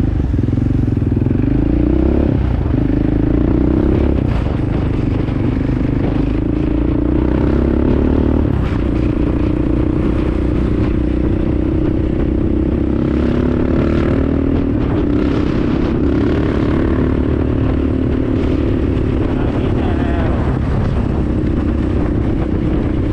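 Four-wheeler (ATV) engine running while riding along a road, its note shifting up and down a few times with speed.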